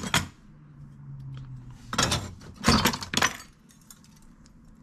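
Rusty old metal tools clinking and clattering against each other as a hand rummages through them in a plastic tote: a short rattle at the start, then two bursts of clatter about two and three seconds in.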